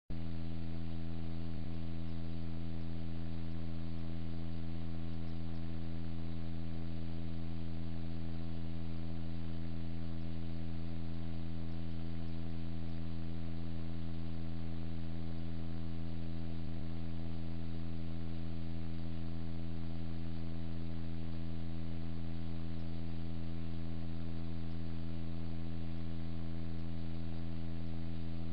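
Steady electrical hum on a police dash camera's audio track, one unchanging low drone with a hiss above it.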